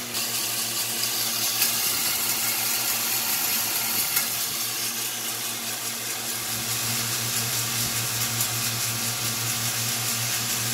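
DeWalt heat gun blowing and a right-angle drill turning a flour-sifter drum roaster loaded with coffee beans: a steady whirring hiss over a low hum, the hum growing stronger about six and a half seconds in.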